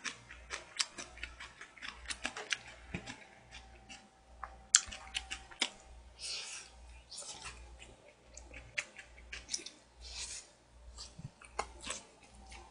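A person eating with chopsticks from a plastic takeout tray: close chewing and mouth noises, with irregular sharp clicks of the chopsticks against the plastic.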